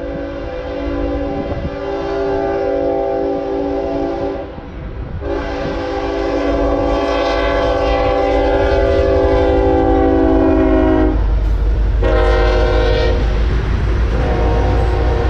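Union Pacific freight locomotive's multi-note air horn blowing the long, long, short, long grade-crossing signal as the train comes on at speed. From about 11 seconds in, the loud low rumble of the locomotives and loaded tank cars rolling past on the rails joins it.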